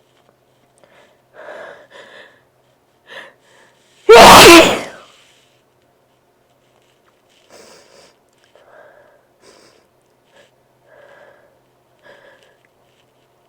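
A man sneezes once, very loudly, about four seconds in; it is one of a fit of sneezes from a congested, over-sensitive nose. Short, quiet catching breaths come before the sneeze, and more short breaths and nose noises follow it.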